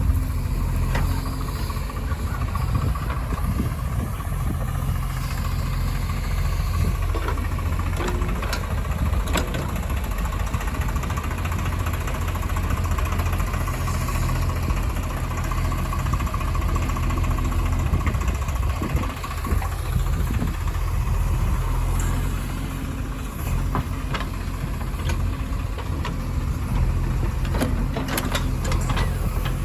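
Heavy diesel engine of earth-moving and farm machinery running steadily at an even, low pitch, with a few sharp knocks scattered through.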